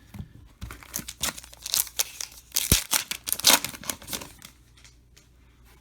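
A trading-card pack wrapper being torn open and crinkled in the hands: a string of crackling rips and rustles, loudest a little past the middle. It dies away about four and a half seconds in.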